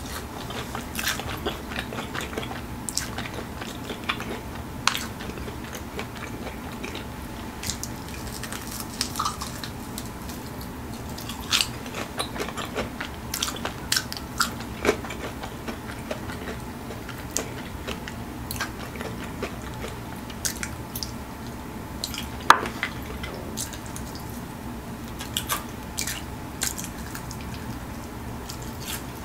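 Biting and chewing of a crispy fried chicken wing coated in crushed Flamin' Hot Cheetos: irregular crunches and mouth clicks, with one louder crack about three-quarters of the way through.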